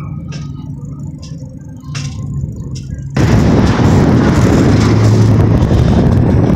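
A steady low vehicle hum with a few light clicks. About three seconds in, a sudden, much louder rumble of wind buffeting the phone's microphone takes over, as from a moving car.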